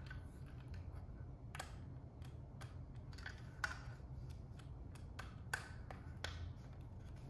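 Keys on a Keychron Q6 mechanical keyboard being pressed, fitted with Keychron K Pro Silent Brown switches: soft, irregular key clicks, two of them sharper around the middle, over a steady low hum.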